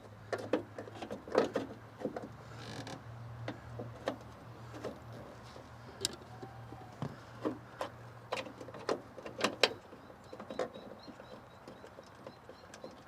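Irregular clicks and knocks of metal and plastic as a new door check (door stopper) is worked into the car door's inner cavity, over a faint low hum. A faint bird chirps in short repeated notes near the end.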